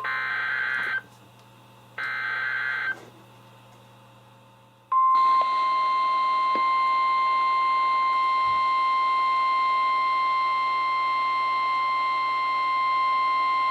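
NOAA Weather Radio SAME alert signal: a burst of warbling digital data tones ends about a second in, and a second one-second burst follows a second later, both part of the data header. About two seconds after that comes the steady 1050 Hz warning alarm tone, held for about nine seconds, which announces a severe thunderstorm warning.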